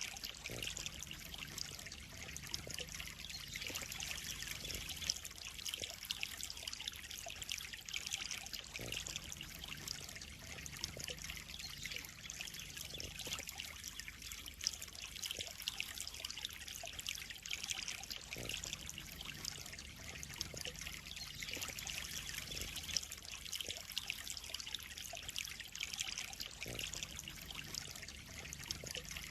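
Water in a koi pond trickling and splashing steadily, a fine high patter of many small splashes with no change in pace.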